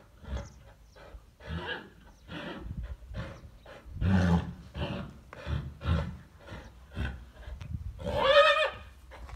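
Purebred Spanish horses, a chestnut stallion and grey fillies meeting over a wall: a run of short grunts and snorts, a deeper one about four seconds in, then near the end one loud, wavering high squeal as the stallion rears up against the wall.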